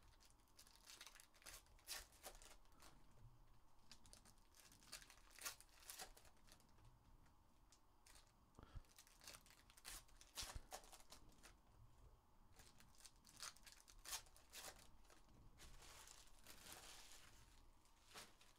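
Foil wrappers of 2023 Panini Rookies & Stars football card packs being torn open and crinkled by hand, with cards handled. It is faint: a run of short, sharp crackles and rips, with a longer crinkle near the end.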